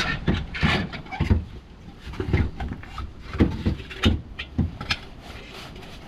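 Irregular knocks, clunks and short scrapes of metal tools and car parts being handled during gearbox removal.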